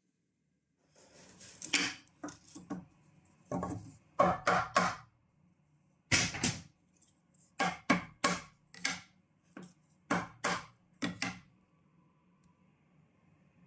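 About a dozen short scraping strokes on wood, coming in irregular groups with pauses between them.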